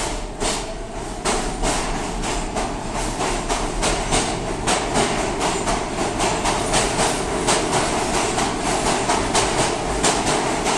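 R46 subway train accelerating out of the station, its steel wheels clacking over the rail joints in a quickening rhythm over the steady running noise of the cars.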